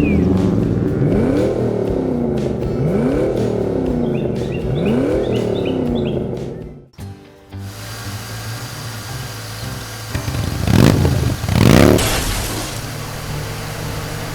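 Cartoon car engine sound effect revving up again and again, about every second and a half, over background music. After a sudden break about seven seconds in, a steady low hum follows, with two loud whooshes about a second apart.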